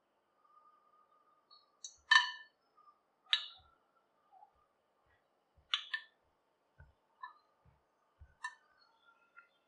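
A handful of short, sharp clinks and taps in a metal pressure cooker, as a spoon knocks ghee off into the oil and whole spices are dropped in; the loudest clink comes about two seconds in.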